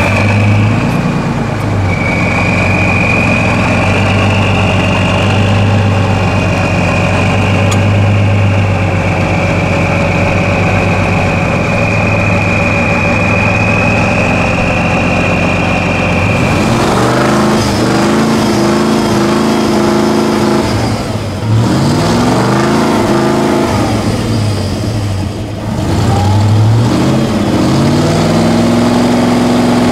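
Diesel engine of an eight-wheeled off-road trial truck running steadily under load as it climbs a dirt mound, with a steady high whine over it. About halfway through, after a cut, another truck's engine revs up and down in several rising-and-falling surges as it works through mud and rocks.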